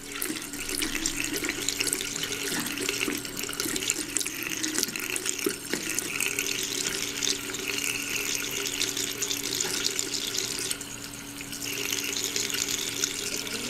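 Bathroom tap running a thin stream into a sink and splashing off a cat's head and fur under the spout. A steady low hum runs underneath, and the water sound drops briefly about eleven seconds in.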